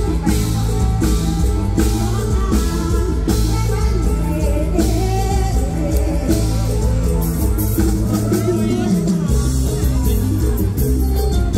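Loud live mor lam band music over a PA, with a singer, a steady drum beat and heavy bass.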